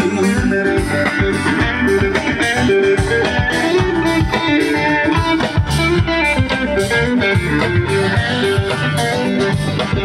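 Live rock band playing an instrumental passage with no vocals: electric guitars over bass and a steady drum beat.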